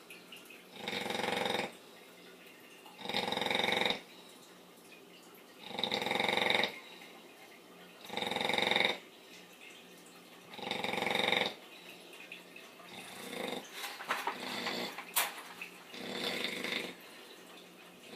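An American bully dog snoring in its sleep, snoring like a pig: five strong rasping snores about every two and a half seconds, then weaker, less regular snores toward the end, with one sharp click about fifteen seconds in.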